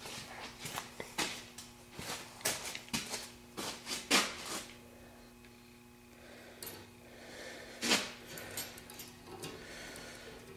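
Hand file scraping on the steel trigger of a Death Klutch gopher trap in a vise, in short irregular strokes, filing the trigger so it seats between the spring's coils. The strokes come thick in the first half, pause, and one sharp stroke follows near the end.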